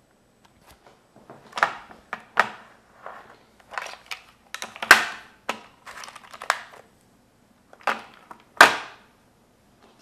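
Irregular rustling and clicking handling noises, about eight separate short crackly bursts a second or so apart, each dying away quickly.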